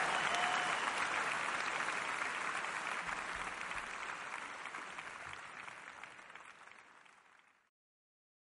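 Audience applause, a dense patter of clapping that fades steadily away to silence near the end.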